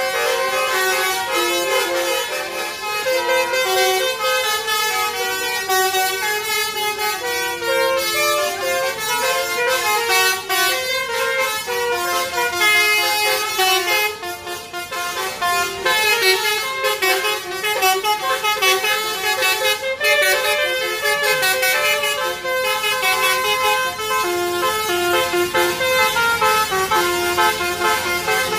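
Basuri multi-tone musical bus horn playing a fast tune, note after note stepping up and down with barely a gap, briefly dipping about halfway through.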